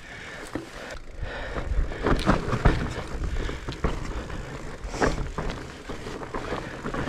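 Mountain bike rolling fast over a rough, muddy dirt trail: tyre noise with knocks and rattles from the bike over bumps, heaviest about two seconds in and again around five seconds, over wind rumble on the microphone.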